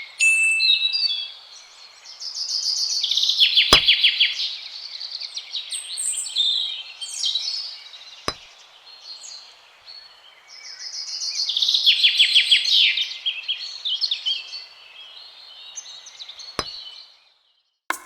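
Several birds chirping and singing, with two bursts of rapid trilled notes, over a steady hiss; a few sharp clicks stand out.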